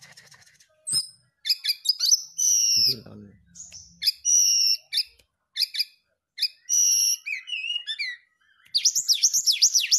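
Brown-chested jungle flycatcher (sikatan rimba dada coklat) singing loudly: short varied whistled phrases and trills, ending in a fast run of falling notes near the end.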